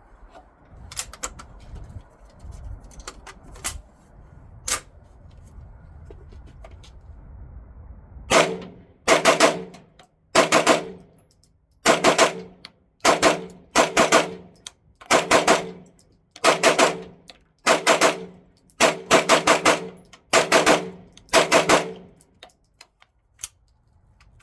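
CZ Scorpion carbine fired unsuppressed through a muzzle brake: about a dozen quick strings of shots, roughly one a second, starting about eight seconds in. Before that there are only a few faint, scattered reports over a low rumble.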